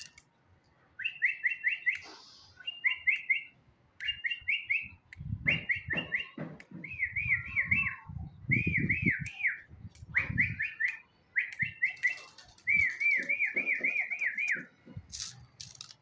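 A man whistling with his mouth as a recall call to a young pigeon: short groups of three or four quick rising-and-falling notes, repeated about once a second. He whistles more than usual because the bird is a little frightened. There are low rumbles around the middle.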